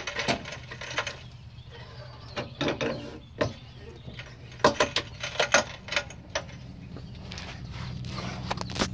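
Irregular clicks and knocks of a jack being worked to raise a pickup's cab off its frame, over a steady low hum that grows a little louder toward the end.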